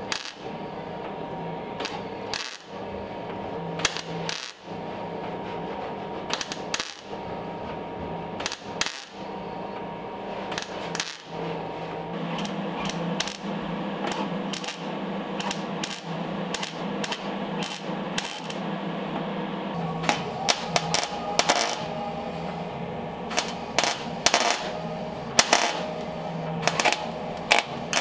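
Eastwood 175 MIG welder crackling as it welds a steel patch panel into a car's A-pillar, in short runs with brief pauses between them. From about 20 seconds in the crackle comes denser, with sharper pops.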